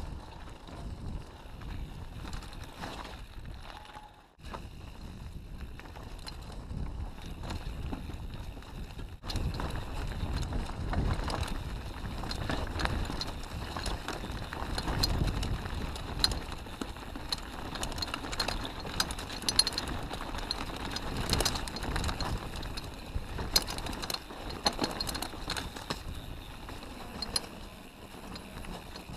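Mountain bike ridden over woodland singletrack: wind rush on the microphone and tyres rumbling on dirt, with frequent sharp clicks and knocks from the bike jolting over rough ground, louder and busier in the second half.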